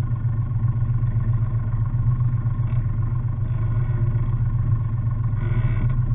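Sailboat's engine running steadily as the boat is manoeuvred to turn it around, a constant low hum.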